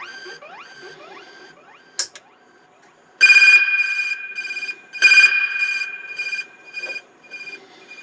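S-Cat digital dub siren run through delay and reverb: the echoes of rising sweeps die away, a short sharp blip sounds about two seconds in, then two loud steady high tones fire about a second and a half apart, each repeating as evenly spaced echoes that fade out.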